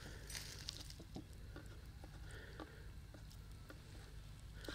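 Quiet kitchen handling sounds during food preparation: scattered light taps and clicks with soft squishing, over a steady low hum.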